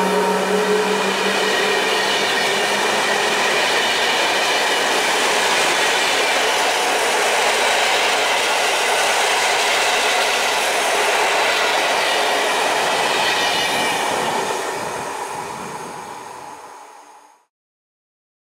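Intercity passenger coaches rolling past on the rails, a steady rush of wheel and rail noise with a clickety-clack of wheels over rail joints. It fades away over the last few seconds and stops.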